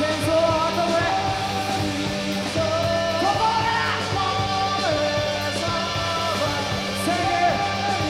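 A rock band playing live, with electric guitar, electric bass and drums under a singer's voice.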